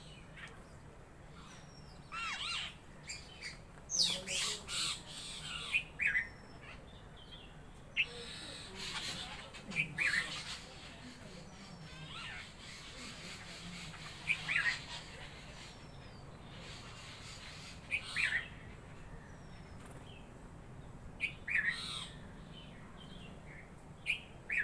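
Birds calling: short squawks and chirps at irregular intervals, over a faint steady low hum.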